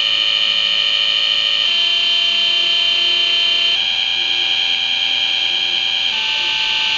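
Harsh, buzzy electronic tone from a small speaker driven by a homebuilt computer's digital-to-analog converter, holding each pitch for a second or two and then jumping up to a new one, three times over.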